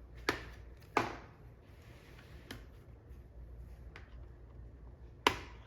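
Plastic clips of an HP laptop's screen bezel snapping loose as it is pried off: three sharp snaps, two close together near the start and one near the end, with fainter clicks between.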